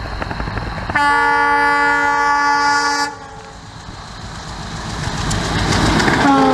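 WDM3A diesel locomotive approaching and passing. It sounds its multi-note horn in one steady blast of about two seconds, then its running noise grows louder as it nears. A second horn blast starts near the end, its pitch dropping as the locomotive goes by.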